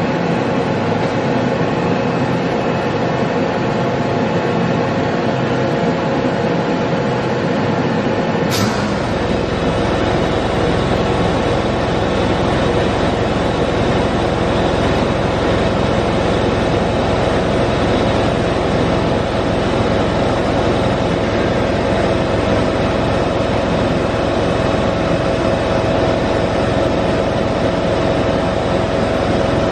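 2012 Doosan DBC 130 CNC horizontal boring mill running, with a steady mechanical hum as its rotary table turns. About nine seconds in there is a sharp click, and a deeper rumble and a steady whine come in and hold.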